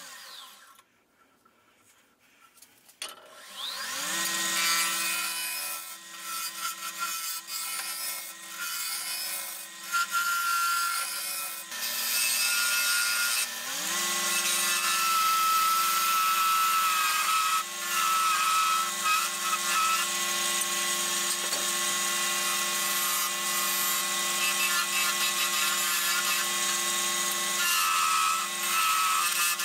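Wood lathe stops at the start, then spins back up about three seconds in with a rising hum and settles to a steady motor hum. Over the hum, a skew chisel shaves the spinning spoon blank with a constant scraping hiss. Around twelve seconds in the motor's hum drops in pitch, then rises back to speed about two seconds later.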